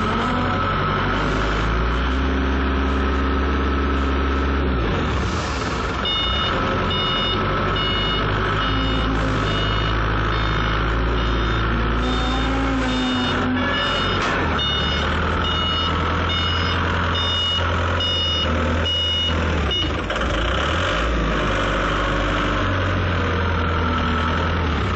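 Forklift engine running, its speed rising and falling as it works. From about six to twenty seconds in, a reversing alarm beeps over it again and again.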